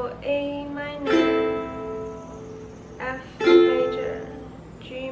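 Ukulele strummed slowly, a few separate chord strums each left to ring and fade: a beginner practising the change from A minor to F major.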